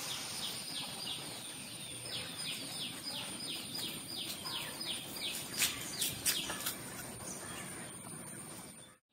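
A small bird calling: a run of short, high, falling chirps, about three a second, that fades out after about seven seconds. A few sharp clicks come about halfway through.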